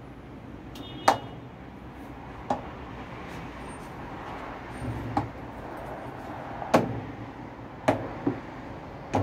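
Irregular sharp plastic knocks and clicks, about six, as hands handle and press the plastic tub cover ring on the outer tub of a MABE top-load washing machine. The loudest knocks come a little over a second in and near the end.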